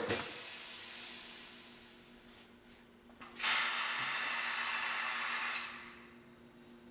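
Compressed air hissing from a pneumatic tyre changer as its assist arm pushes the wheel down and the rim clamps close. There are two hisses: the first starts loud and fades over about two seconds, and the second holds steady for about two seconds before cutting off.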